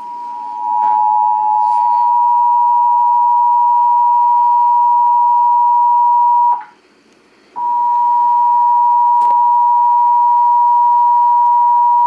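Emergency Alert System attention signal, the steady two-tone alarm (853 and 960 Hz) broadcast over FM radio, sounding loudly through a JVC stereo receiver. It breaks off for about a second just past halfway, then starts again.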